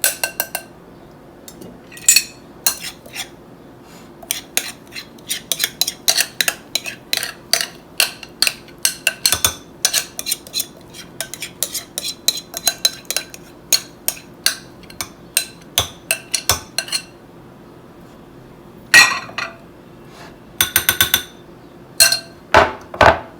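A utensil clinking and scraping against a bowl as batter is scraped out into a baking dish: a long run of quick clicks, about two or three a second, then a few tight clusters of clinks near the end.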